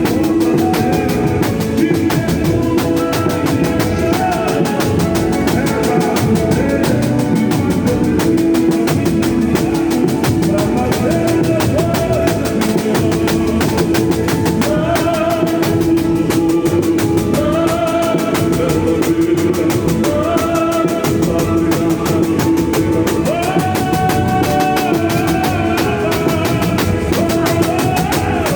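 Live boi-bumbá music played loud: a large drum ensemble keeps up a dense, steady beat, with a held low tone and a melody line moving above it.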